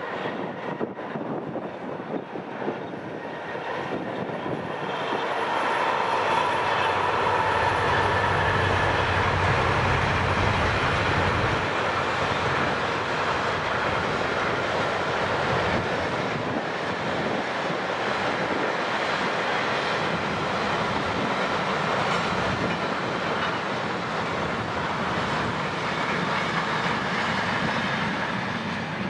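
A container freight train hauled by G class diesel-electric locomotives passing close by: the locomotives' engines grow louder over the first few seconds as they draw level, then the wagons' wheels run steadily over the rails.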